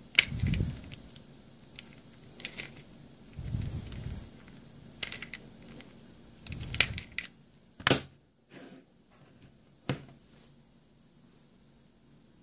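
Plastic two-layer star Square-1-type twisty puzzle being turned by hand: irregular clicks and clacks of its layers turning and snapping into place, mixed with low muffled handling thumps. Two sharper knocks come about eight and ten seconds in, after which it goes quiet.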